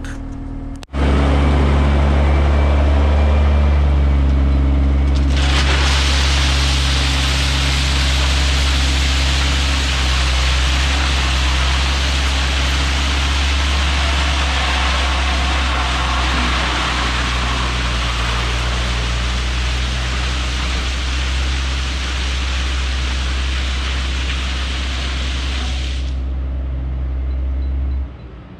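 Dump truck engine running steadily while rock pours out of the raised bed, a dense rushing noise that starts about five seconds in and stops a couple of seconds before the end, leaving the engine alone.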